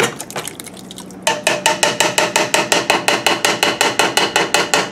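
An upturned tin can of thick canned chili being tapped rapidly and evenly to knock the contents out into the pot, each tap with a short metallic ring, starting about a second in.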